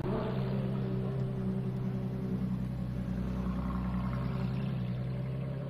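Ferrari LaFerrari's V12 engine idling steadily, a low even tone with no revving.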